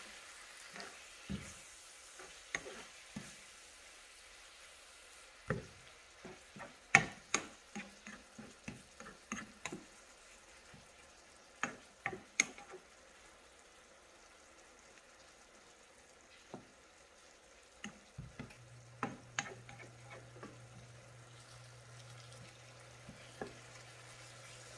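Spoon scraping and knocking against a frying pan as vegetables and fermented fish (ginamos) are stir-fried, over a faint sizzle. The clicks come thickest between about five and thirteen seconds in. A low steady hum starts at about eighteen seconds.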